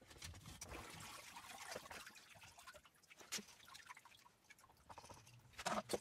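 Water trickling and dripping off a sump pump as it is lifted out of its pit, faint, with a few soft knocks and a short louder knock near the end.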